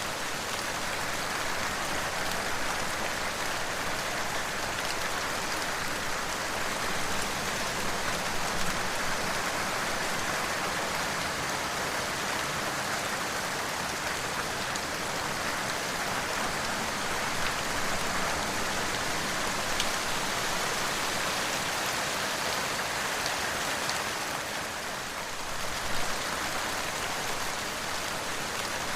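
Steady rain falling, with a brief dip in level a little before the end.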